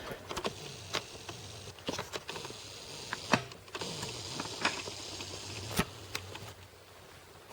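Light, irregular metallic clicks and taps of parts being handled on a 1911 pistol: the slide stop being positioned against the frame and a small Allen wrench being picked up and set against it. A faint low hum runs underneath.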